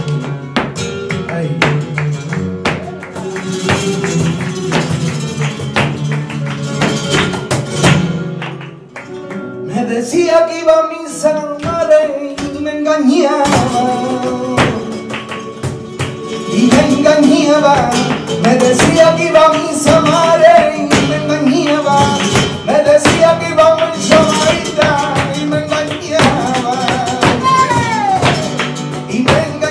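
Live flamenco: flamenco guitar with many sharp percussive strikes from the dancers' heel-and-toe footwork and hand-clapping (palmas). A male singer's wavering cante comes in about ten seconds in and carries on over the guitar and footwork.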